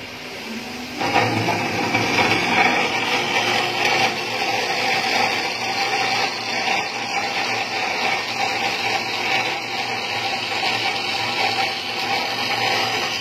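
Datyso 400B burr-free circular metal-cutting saw running and cutting bar stock under flood coolant. The sound rises sharply about a second in, then runs steadily with a few held whining tones over the cutting noise.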